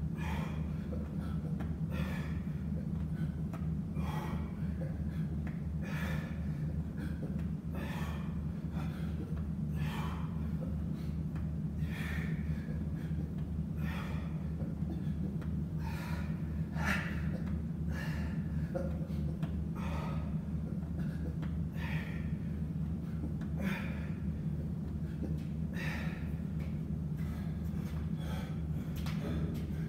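A man breathing hard in short gasps, about one breath a second, while doing sit-ups, over a steady low hum.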